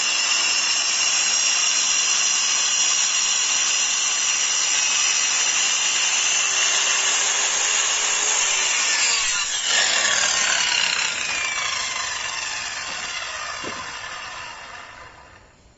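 Circular saw running and cutting wood, a steady high whine over a rasping noise. About ten seconds in the motor is switched off and the blade winds down, its whine falling in pitch and fading until it stops near the end.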